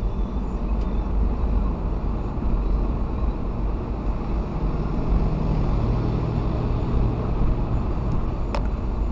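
A car moving at highway speed: steady road, tyre and engine noise from inside the cabin, with a low hum rising in the middle and a short click near the end.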